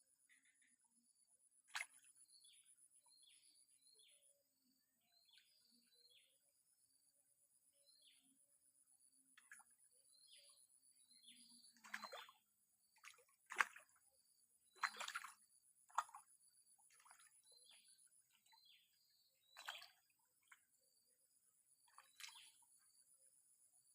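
Faint frog calls: many short chirps repeating about once a second, with several louder sharp calls scattered through, over a steady high insect-like whine.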